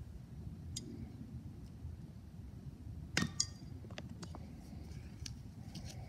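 A few light metallic clinks of steel throwing knives knocking together in the hand. The sharpest comes about three seconds in and rings briefly, over a low rumble of wind on the microphone.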